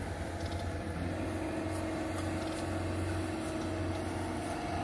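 Engine of farm machinery running steadily with a low hum. A higher steady tone becomes stronger about a second in.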